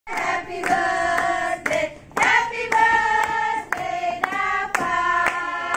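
A group of women singing a birthday song together while clapping along in time, about two claps a second, with a short break about two seconds in.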